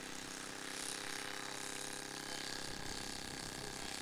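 Supercharged YS 91 FZ four-stroke glow engine of a radio-controlled P-51 model running at a steady pitch.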